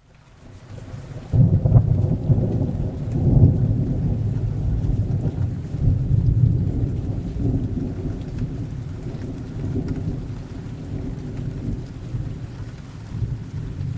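Recorded thunderstorm sound effect. A long roll of low thunder breaks about a second in and rumbles on, slowly dying away, over steady rain.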